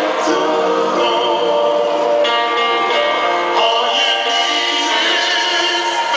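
A live soul band with electric guitar plays while a male vocal group sings, amplified through the stage PA.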